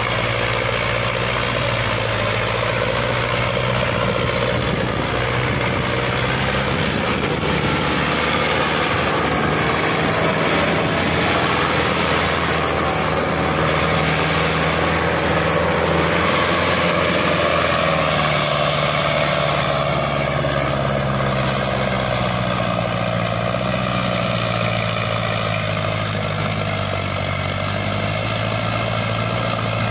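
Sonalika DI 750 tractor's diesel engine running hard under heavy load while pulling a fully loaded trolley, a steady loud drone whose pitch rises and falls slightly in the second half as the revs change.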